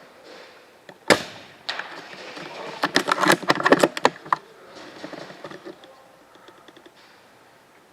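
Airsoft guns firing: one sharp crack about a second in, then a rapid cluster of snapping shots and impacts over about a second and a half, fading to a few scattered clicks.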